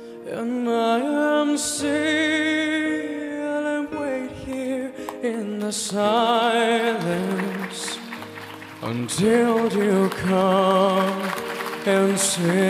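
A male singer singing a slow, sentimental ballad with vibrato over an instrumental backing.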